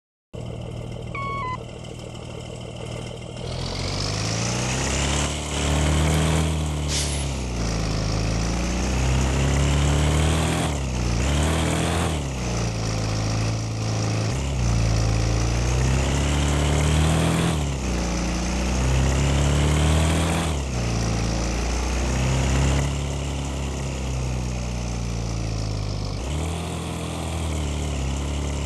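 Bus engine under way, its revs climbing and then dropping back every two to three seconds, with a whine that rises and falls along with it. There is a brief sharp hiss about seven seconds in.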